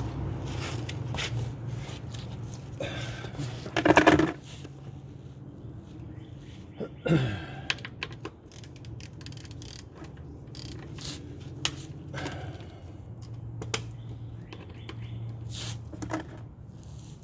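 Small clicks and knocks of metal tools and parts being handled, with a louder clank about four seconds in, as a used oil filter is cut open and taken apart for inspection.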